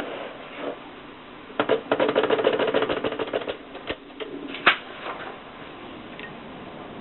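Typewriter keys clacking: a fast run of strokes lasting about two seconds, then a few scattered strikes, one of them louder.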